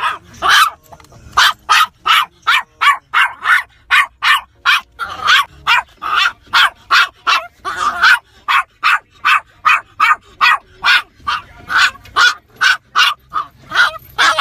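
Toy poodle barking nonstop, short sharp barks at about three a second.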